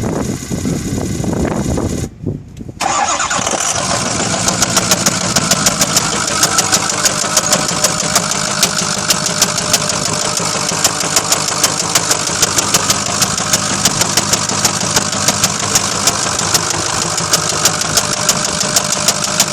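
Ford 6.0 Powerstroke V8 turbo-diesel running, with a brief drop about two seconds in, then idling with a sharp knock repeating several times a second. The owner is unsure whether the knock comes from a rod, an injector, a valve or the high-pressure oil pump.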